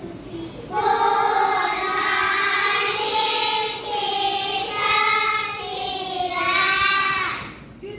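A class of young children singing together in unison, holding long notes; the singing starts about a second in and stops shortly before the end.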